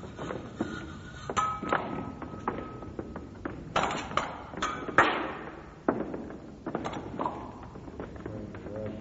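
Fencing blades striking each other in irregular exchanges, some touches ringing briefly and metallically, mixed with thuds of footwork on the floor.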